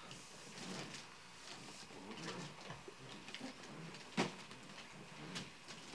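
Wrapped gift boxes being handled and shifted, with scattered light knocks and rustles and one sharp knock about four seconds in.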